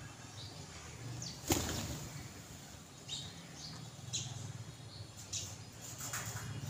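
A flock of house sparrows and a rock pigeon flush off the ground together in a sudden burst of wing flaps about a second and a half in. Short house sparrow chirps follow several times.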